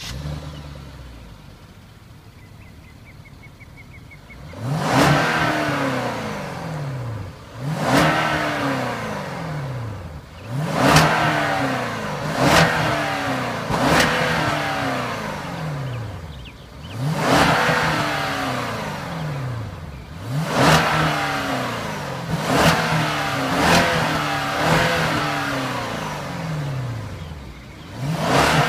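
2015 Hyundai Equus's 5.0-litre V8 heard at its exhaust tips: it idles for about four seconds, then is revved in a series of quick blips about every two seconds. Each blip climbs sharply and falls back to idle.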